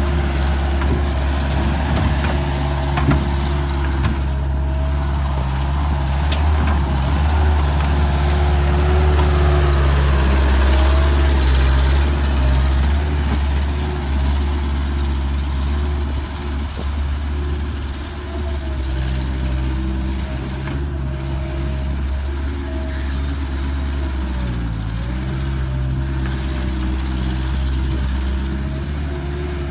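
Bobcat 753 skid steer's diesel engine running steadily, with a brief drop in engine speed about 25 seconds in that soon recovers.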